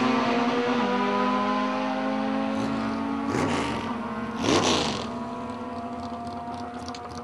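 Two Honda Civic drag cars' four-cylinder engines at full throttle, fading steadily as they pull away down the strip, with a drop in pitch a little under a second in and two brief louder surges around three and four and a half seconds in.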